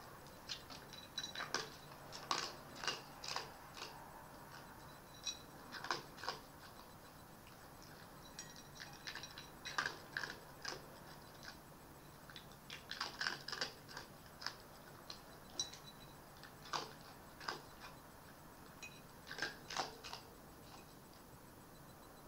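Fox eating from a bowl: irregular clusters of sharp crunches and clicks as it chews food and its muzzle knocks the dish.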